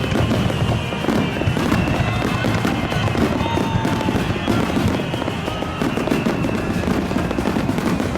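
Fireworks display: a dense, continuous barrage of crackling and popping bursts over a low rumble.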